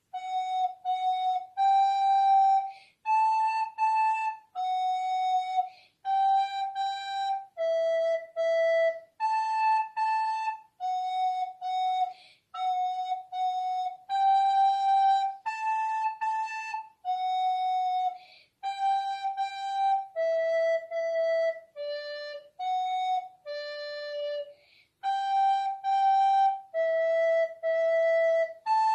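Soprano recorder playing a simple, slow solo melody, each note tongued separately with a short break between, many notes played twice in a row.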